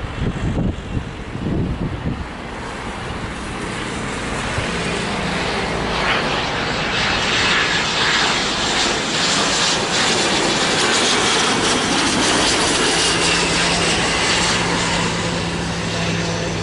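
Hawker 800XP business jet's twin Honeywell TFE731 turbofans growing louder as it comes in low to land. About six seconds in, a high engine whine rises over the broad rush and holds at full strength as the jet passes.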